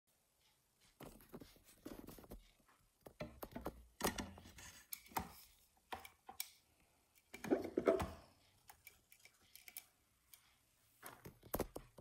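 Clicks, knocks and scrapes of handling as the glass carafe of a SMEG drip coffee machine is gripped and lifted off its warming plate. The noises come in irregular clusters, the loudest about eight seconds in.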